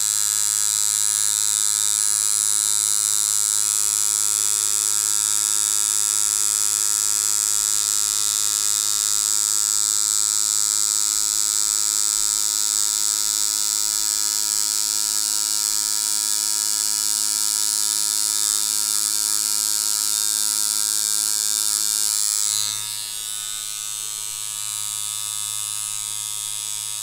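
Rotary tattoo machine with a 7-round liner running steadily at one pitch while lining on practice skin. About 22 seconds in it turns quieter but keeps running.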